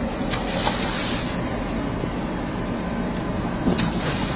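Steady low rumble of the fishing boat's engine, with splashing from a hooked queenfish thrashing at the surface alongside the boat, about half a second in and again near the end.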